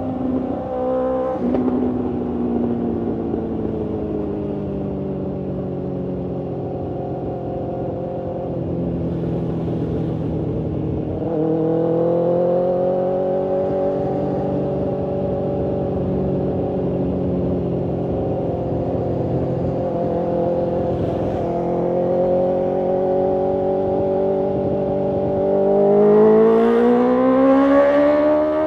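BMW S1000RR's inline-four engine and exhaust heard from the rider's position on the moving bike. A quick gear change comes about a second in, then it runs at a steady cruising drone. Engine speed steps up about eleven seconds in, and the revs climb steadily near the end as the bike accelerates.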